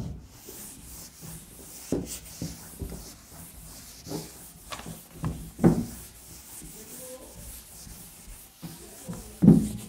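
Rubbing and scraping sounds with a few short thumps scattered through, the loudest near the end.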